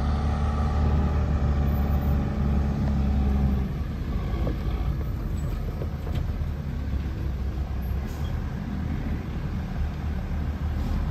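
Diesel engine of a Bell B20 articulated dump truck pulling a load of rock, a heavy low drone that eases off about three and a half seconds in and carries on lower.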